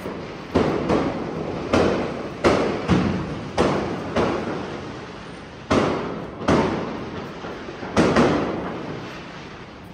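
Firecrackers bursting one after another, about a dozen sharp bangs at uneven intervals, each trailing off in an echo.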